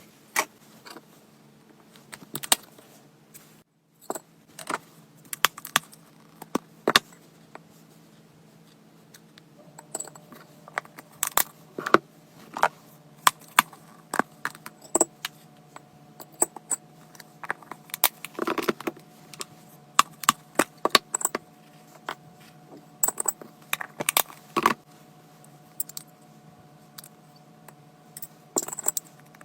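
Irregular light clicks, taps and small rattles, like small hard objects being handled, scattered throughout.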